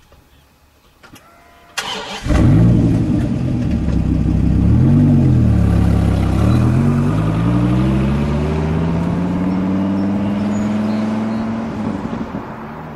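Dodge Viper's V10 engine starting up about two seconds in, blipping once, then pulling away with a steadily rising pitch and slowly fading as the car drives off.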